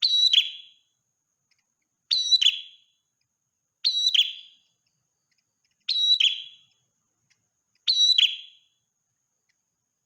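Prenjak merah, a prinia, giving a short, sharp chirping call five times, about once every two seconds, each call a quick burst of high notes with dead silence between.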